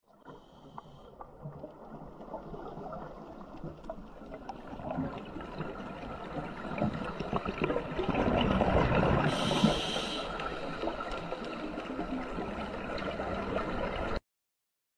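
Underwater ambience picked up by a diving camera: a steady crackling, rushing wash full of small clicks. It swells to a louder rush about nine to ten seconds in, then stops abruptly near the end.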